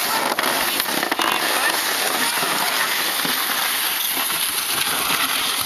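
Plastic sled sliding over crusty, packed snow: a steady crackling scrape.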